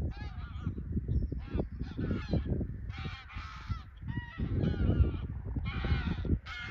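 A flock of geese honking in flight, many calls overlapping and repeating without pause. Bursts of low rumble sound under the calls at times.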